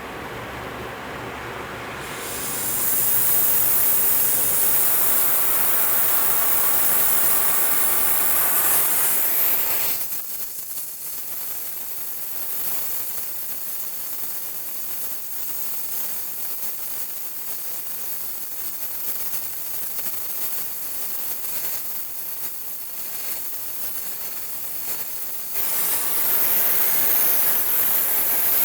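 Gas brazing torch flame hissing steadily. It is louder from about two seconds in until about ten seconds, softer after that, and rises again near the end.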